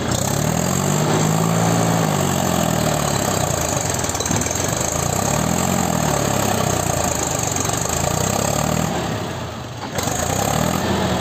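Mahindra 265 DI tractor's three-cylinder diesel engine labouring under load as it tries to drag a heavily loaded trolley out of mud. The revs rise and fall several times, with a brief easing just before the end.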